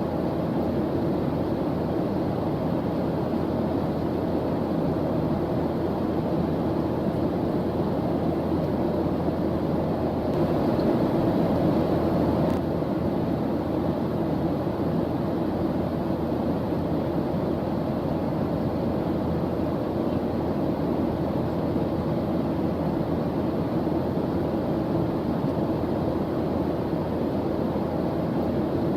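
Steady, deep white-noise track: an even, low rushing hiss with no rhythm or pitch, swelling slightly about a third of the way through.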